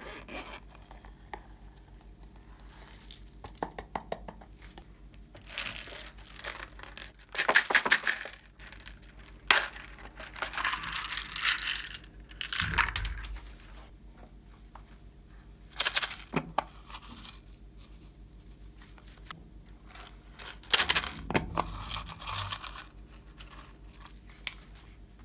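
Small plastic containers being handled and plastic pearl beads and sequins poured out of them onto slime in a glass tray: a string of short rustling, rattling bursts with quiet gaps between, over a faint steady hum.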